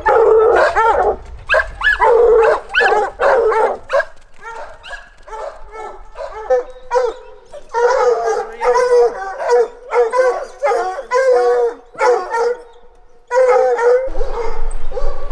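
A pack of bear hounds baying and barking in quick, overlapping calls, with a quieter stretch early on and a short pause near the end: hounds giving voice on a bear track. A low rumble sits underneath for the first few seconds and comes back near the end.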